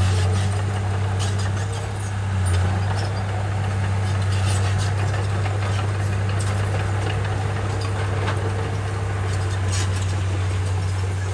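Komatsu bulldozer's diesel engine running with a steady deep drone, with scattered light clicks and clanks over it.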